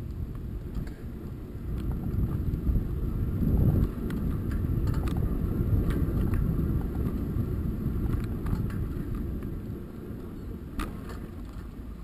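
Riding a bicycle: a low rushing noise of wind and road on the microphone, growing louder a couple of seconds in and easing off near the end, with a few faint clicks.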